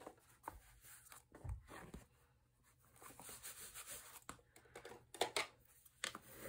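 Faint rustling and rubbing of canvas fabric being pressed and smoothed by hand onto a score-taped cardboard folio, with a soft thump about a second and a half in. Near the end come a few short scraping strokes from a bone folder rubbed over the canvas.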